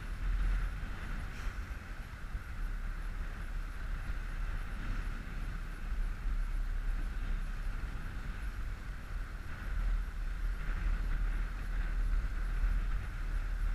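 Outboard motor of an inflatable coach boat running steadily under way, with wind noise on the microphone and water rushing past the hull.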